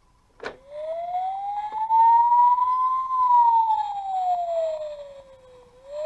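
Electronic siren sound effect of a battery-powered Dickie Toys fire engine. A click, then one slow wail that rises for about two and a half seconds, falls back down, and starts to rise again at the end.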